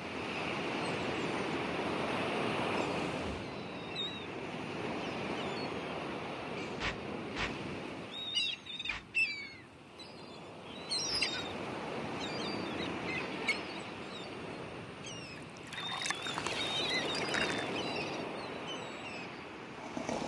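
Steady hiss of surf washing on a beach, with birds chirping now and then, mostly about halfway through and again near the end.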